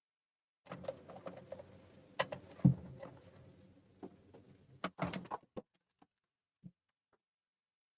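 Irregular clicks and knocks of small parts and tools being handled on a workbench, with one heavier knock about two and a half seconds in, then a few faint ticks before it falls quiet.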